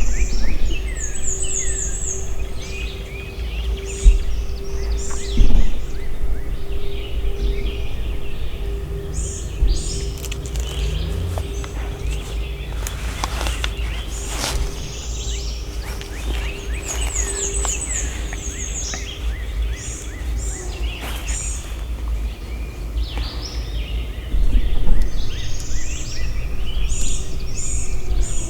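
Songbirds singing and chirping, with a repeated high trill heard three times. Underneath run a steady low rumble and a steady hum that stops about twenty seconds in.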